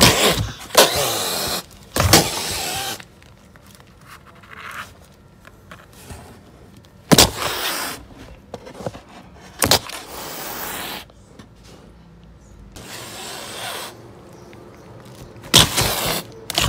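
Mother cat hissing and spitting over and over, each hiss about a second long and most opening with a sharp spit: a defensive threat to guard her newborn kittens.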